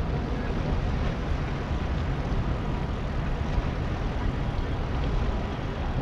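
Steady low engine rumble from a Great Lakes ore freighter passing close by, with a constant outdoor noise over it.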